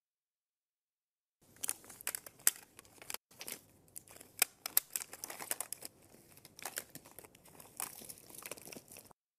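Fabric and clothes rustling and crinkling as a pile of clothes is rummaged through, in irregular bursts of sharp crackles. It starts about a second and a half in and stops just before the end.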